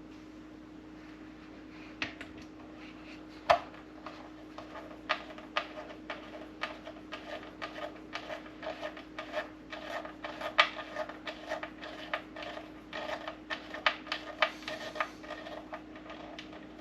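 A screw being driven back into the coffee maker's housing with a screwdriver: a run of small, irregular clicks and rubs, starting about two seconds in. A steady low hum runs underneath.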